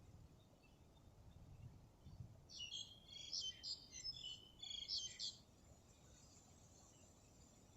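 A bird calling: a rapid run of high chirping notes lasting about three seconds in the middle, over faint outdoor background noise.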